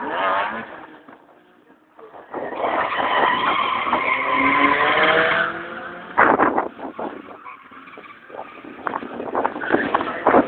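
Drift car's engine revving hard with its tyres screeching as it slides, loudest for about three seconds from two seconds in, the engine pitch rising and falling. There are sharp cracks about six seconds in and again near the end.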